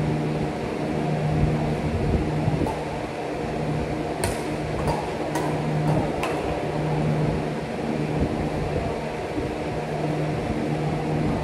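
Steady machine hum, one unchanging pitch with overtones, with about five sharp clicks or taps between roughly four and six seconds in.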